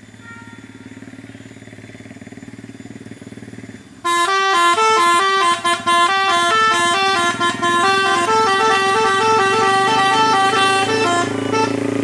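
Vehicle engines approaching, then about four seconds in a telolet horn, a multi-tone horn on the angkot minibus's roof, suddenly starts playing a loud, fast tune of quickly changing notes.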